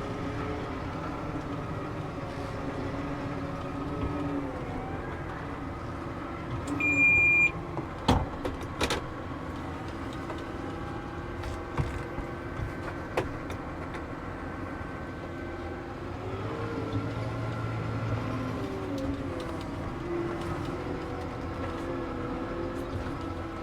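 New Holland T7.315 tractor engine running steadily under way, heard from inside the cab. About seven seconds in a short electronic beep sounds, followed by a couple of sharp clicks.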